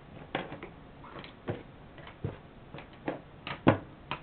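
Pens and pencils being handled, giving about ten light, irregularly spaced clicks and knocks as they tap against each other and the table, the loudest near the end.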